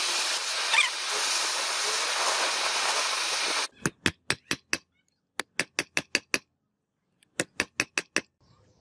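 Gas torch flame hissing steadily while it heats a steel bar, cutting off suddenly a little past the middle. Then three quick runs of sharp metal-on-metal hammer blows on a chisel against a steel strip, about six blows in each run.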